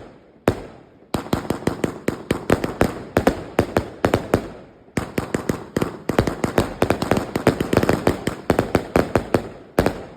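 King of Bling firework shooting off a rapid string of sharp bangs, several a second, with short lulls about a second in and around five seconds, then stopping near the end.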